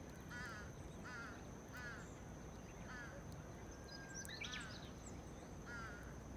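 Faint bird calls: short, pitched honking notes repeated about once or twice a second, over low, even background noise, with a thin, steady high-pitched tone.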